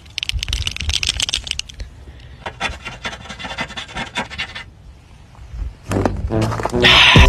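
A paint pen's tip rubbed quickly back and forth over a scratch in a car's paintwork, making dry scraping strokes in two spells. Loud background music comes in near the end.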